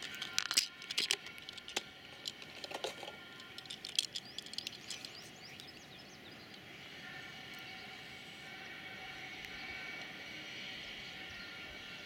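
Thin clear plastic blister packaging crackling and clicking as a diecast model car is worked out of its tray, a burst of sharp clicks over the first five seconds or so. After that only a steady, quiet background noise remains.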